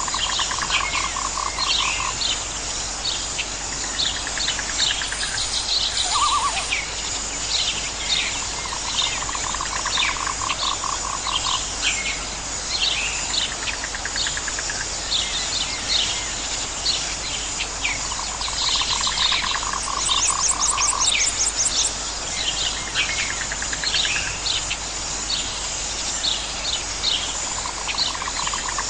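A chorus of calling frogs and insects, with many short falling chirps over a steady high insect drone. Pulsed trills lasting about two seconds recur every few seconds.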